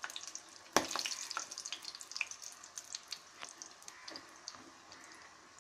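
Jilapi spirals deep-frying in hot oil in a metal pan: steady sizzling with many small crackling pops. There is one sharp knock of the spatula against the pan about a second in.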